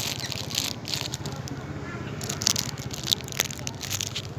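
Irregular crinkling and rustling of plastic being handled, in quick clusters, over a steady low background hum.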